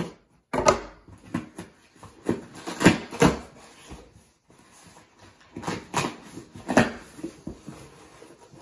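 Cardboard box cut open with a folding knife, then its flaps and packing pulled apart: an irregular string of short scraping, tearing and rustling sounds.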